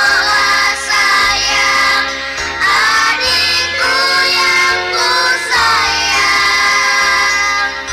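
Background music: a song with a high-pitched sung vocal over a changing bass line.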